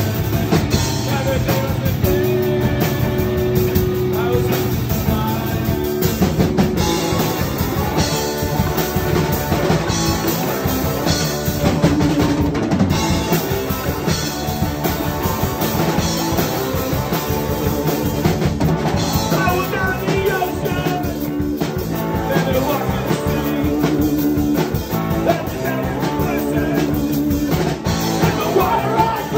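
A live rock trio playing a song on electric guitar, electric bass and drum kit, steady and loud throughout.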